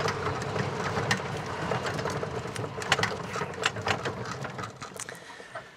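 36-volt electric golf cart driving, its motor giving a steady hum with scattered rattles and clicks; the sound dies down near the end as the cart comes to a stop.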